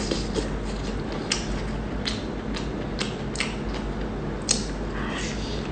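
Close-miked eating of a chicken cutlet in chili oil: irregular crisp crunches and clicks of biting and chewing.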